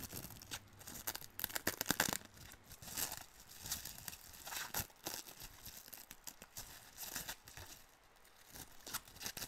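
Sticky plastic wrap being peeled and pulled off a paperback manga volume by hand: irregular crinkling and tearing crackles as the clinging plastic comes away, busiest in the first half and thinning out, with a last flurry near the end.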